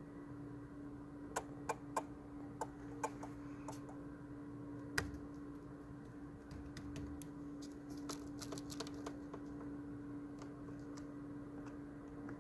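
Irregular, sharp clicking and ticking from the engine bay of a Kia Sportage QL with the engine switched off for over ten minutes, in uneven clusters with the loudest click about five seconds in, over a faint steady hum.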